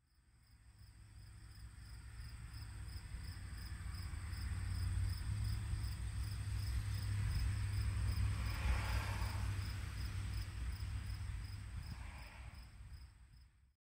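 Insects chirping steadily in a rapid pulsing rhythm, about two to three pulses a second, with a higher steady trill above. Under it runs a low rumble of wind on the microphone that swells in the middle. The sound fades in at the start and fades out near the end.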